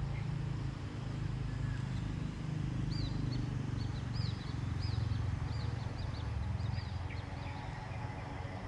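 A bird calls a quick run of short, high, arched chirps, about three a second, starting about three seconds in and stopping about a second before the end, over a steady low rumble.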